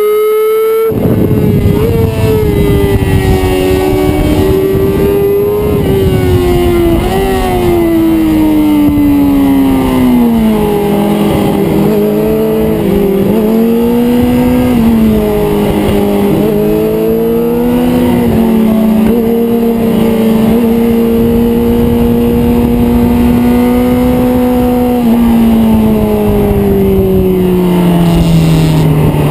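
Yamaha YZF-R6 inline-four engine heard on board at track speed, its pitch rising and falling with throttle and gear changes, over a loud rushing noise that comes in about a second in. Over the last few seconds the engine note falls steadily as the bike slows.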